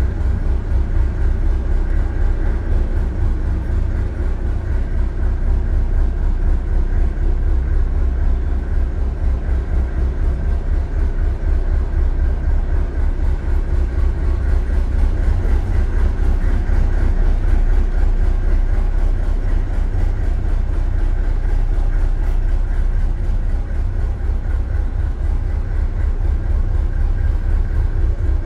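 Narrowboat's diesel engine running steadily with a deep, even beat, inside a brick canal tunnel.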